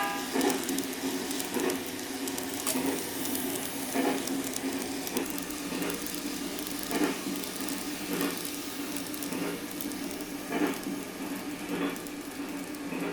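Running sound of a Chuo Line E233 series commuter train, played as a sound effect for an N gauge model: a steady hum and hiss with regular rail-joint clicks about once every second and a bit.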